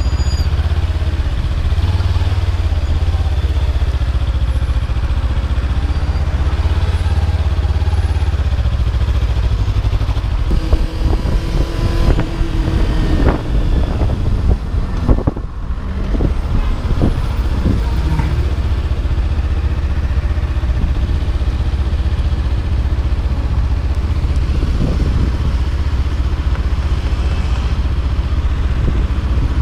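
Kawasaki Ninja 300 parallel-twin engine running as the bike rides in traffic, under a steady low rumble. Around the middle, a few seconds of sharp knocks and clatter come and go.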